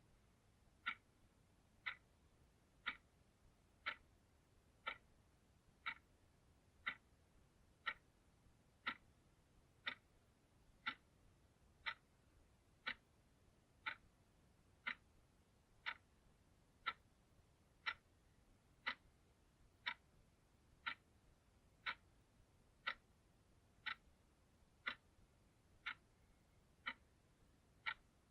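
Clock ticking steadily once a second, each tick a short, sharp click, all alike.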